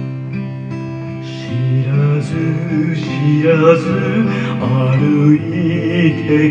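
Acoustic guitar playing, with a man's singing voice coming in about a second and a half in and carrying on over the guitar accompaniment.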